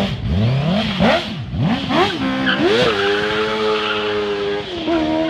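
Honda CBR600 crosskart's inline-four motorcycle engine revved in several quick blips, then pulling away hard: the pitch climbs fast, holds steady, drops at a gear change near the end and holds again.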